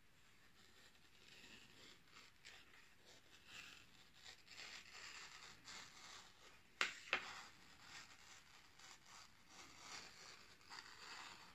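Hultafors Arvika axe's very sharp edge slicing slowly through a sheet of paper: the paper sharpness test. A faint, uneven rasping of cut paper, with two sharp clicks about seven seconds in.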